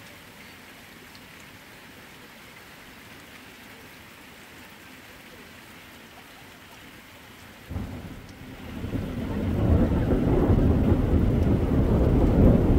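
Light rain falling as a faint steady hiss; about eight seconds in, a sudden clap of thunder breaks into a loud, low rolling rumble that keeps building.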